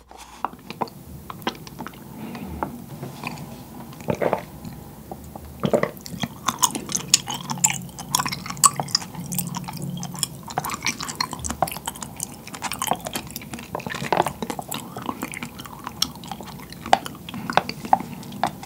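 A sip through a wide bubble-tea straw at the start, then close chewing of firm, jelly-like white tapioca pearls, with many small wet mouth clicks throughout.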